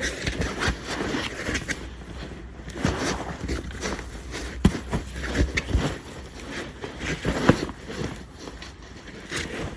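Fabric cover and stiff back insert of a dog booster car seat being handled and fitted together: irregular rustling and scraping with a few sharp knocks.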